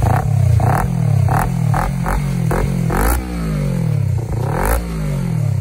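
Kawasaki Ninja 300's parallel-twin engine revved through a big Akrapovic-style slip-on silencer held onto the pipe by hand. It runs as a string of quick throttle blips, then two longer revs that sink back toward idle, showing off the silencer's deep exhaust note.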